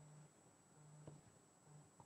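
Near silence: faint background hiss with a steady high-pitched whine and a few brief, faint low hums.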